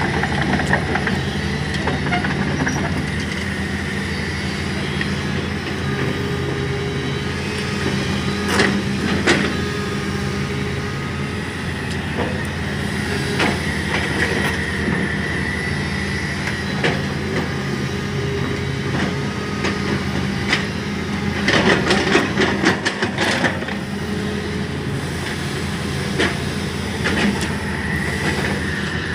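Komatsu 200 hydraulic excavator running under load: a steady diesel engine hum with a hydraulic whine that rises and falls as the boom and bucket work loose soil. Metal clanks and rattles come through about a third of the way in, then a dense burst of them about three quarters of the way through.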